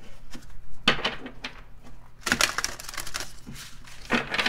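A deck of tarot cards being shuffled by hand: quick runs of card edges flicking and slapping together, in bursts about a second in, midway, and near the end.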